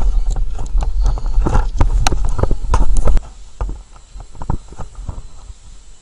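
A pet bird's beak pecking at a wooden surface: a quick, uneven run of sharp taps. Heavy handling rumble on the microphone stops about three seconds in, and the taps thin out after it.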